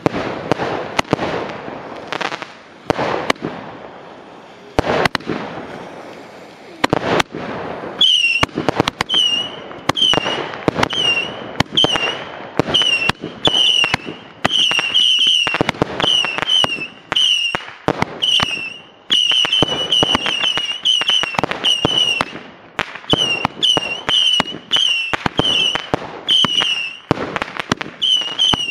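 Ground fireworks going off in a metal box: a dense run of crackling pops over a hiss, then from about eight seconds in a rapid series of short whistles, about two a second, each starting with a sharp pop.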